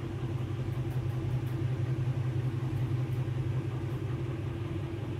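A steady low mechanical hum, unchanging throughout, with no other event standing out.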